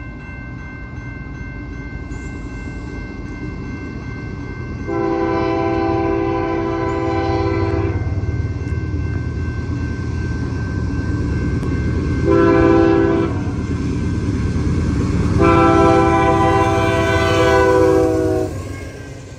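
A CP AC4400CWM diesel-electric locomotive leading an empty grain train approaches with a steady rumble that grows louder as it nears. It sounds its multi-chime horn three times: a long blast about five seconds in, a short one, then another long one that cuts off shortly before the end.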